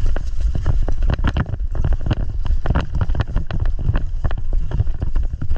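Running footsteps on dirt with gear jostling, many irregular knocks over a heavy rumble of wind and movement on a body-worn camera's microphone.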